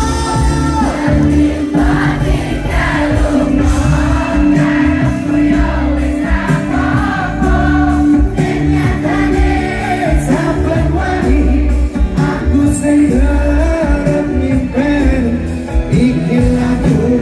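Live band playing a Javanese pop song through a PA, with drums, guitars and keyboard under a male lead vocal and many voices singing along.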